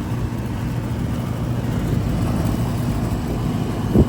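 Outdoor central air conditioner condensers running: a steady low compressor hum under the whoosh of the condenser fans, with a short knock just before the end.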